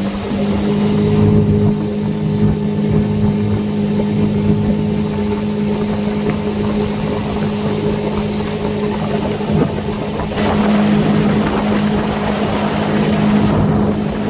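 Small motorboat's engine running steadily at speed, a constant hum over the rush of wind and water. About ten seconds in the rushing grows louder for a few seconds.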